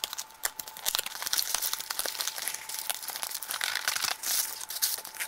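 Cardboard shipping box being torn open by hand: continuous crackling, tearing and crinkling of cardboard and paper, with many small sharp clicks.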